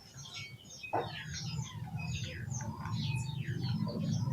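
Many rapid, overlapping high chirps of small birds, most of them short falling notes. A single knock comes about a second in, and a low steady hum rises beneath the chirping from then on.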